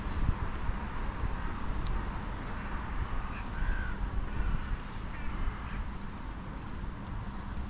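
A small songbird singing three times, each phrase a quick run of high notes that falls in pitch, over a steady low rumble.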